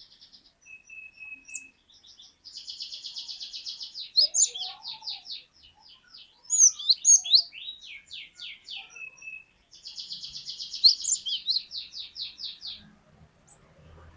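Cinereous tit (glatik batu) singing: a long rapid trill, then a run of quick downward-sweeping whistled notes, then a second long rapid trill.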